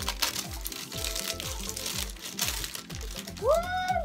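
Background music with a steady beat, over the crinkling of the thin plastic wrapping as a toy capsule ball's layer is peeled off by hand. A short tone rises and falls near the end.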